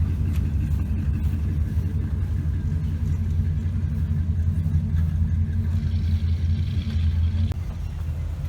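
A car engine running steadily with a low rumble. It eases off slightly about seven and a half seconds in.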